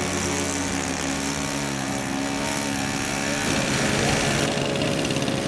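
Radio-controlled model aircraft engine running steadily, its pitch dipping slightly about two seconds in. About three and a half seconds in, the sound switches abruptly to a rougher engine note.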